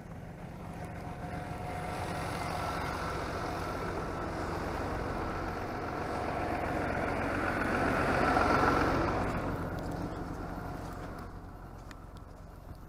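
A motor vehicle passing on a snowy road, growing louder to a peak a little past the middle, then fading away.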